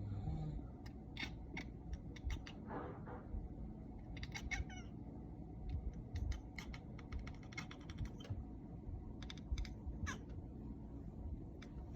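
Domestic cat chattering at the window: runs of rapid clicking, with a few short chirps and meows in between. This is the noise a cat makes while fixed on prey it can see but not reach.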